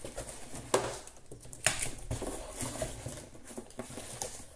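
Cardboard shipping box being handled by hand, its flaps and crumpled kraft packing paper rustling, with two sharp clicks in the first two seconds.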